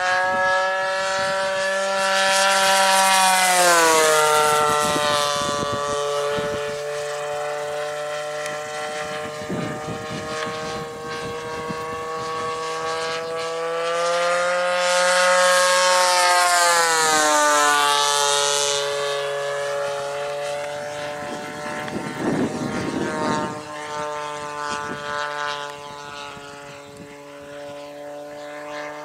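RCGF 26cc single-cylinder two-stroke gasoline engine and propeller of a Seagull Models Yak-3U RC plane, running hard through aerobatics. It gets louder and then drops in pitch as the plane flies past, a few seconds in and again about halfway through.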